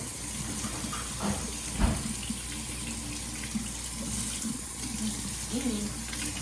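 Kitchen sink tap running steadily, water pouring into the sink as hands are washed, with a light thump about two seconds in.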